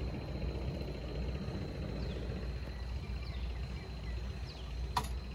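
Steady low outdoor rumble, with a bird repeating short falling chirps about once a second and one sharp click near the end.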